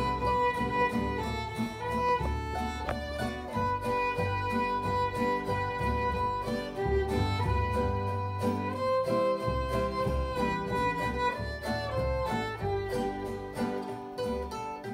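Fiddle, mandolin and acoustic guitar playing a tune together: the bowed fiddle carries the melody in long held notes over the plucked mandolin and guitar accompaniment.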